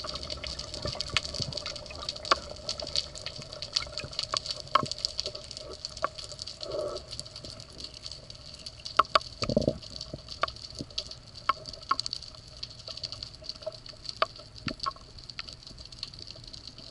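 Underwater ambience heard through a camera's waterproof housing: a steady hiss with a faint high whine, scattered sharp clicks and crackles, and one dull thump about nine and a half seconds in.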